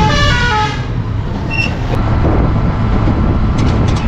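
Steady low rumble of a moving road vehicle heard from on board, with a horn playing a short falling tune of notes in the first second.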